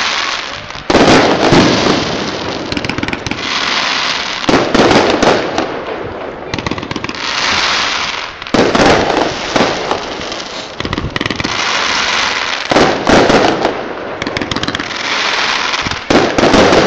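Aerial firework shells bursting one after another: a loud bang about every four seconds, five in all, with hissing and crackling between the bangs.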